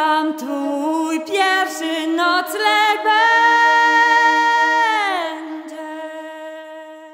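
Unaccompanied female singing. A higher voice moves through a melody, holds a long note, then slides down about five seconds in, over a steady low held note. It fades out near the end.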